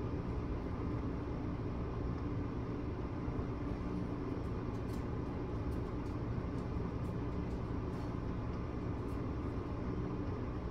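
Steady low machine hum with a few faint, short high ticks after the middle.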